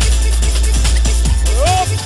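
Electronic dance music with a heavy bass line and a steady beat.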